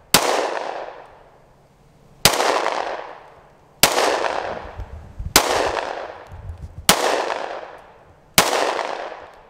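Gunshots from a magazine-fed gun fired one at a time at targets: six shots about a second and a half apart, each trailing off in a long echo.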